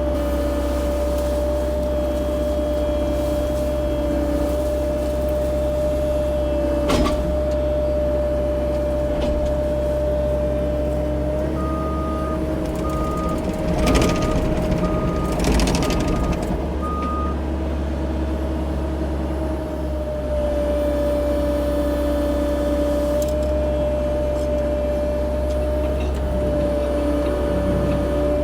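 CAT 304 E2 mini excavator running steadily, its engine and hydraulics giving a constant hum and whine. A few knocks sound, one about seven seconds in and more around the middle, and a travel alarm beeps six times, about a second apart, partway through.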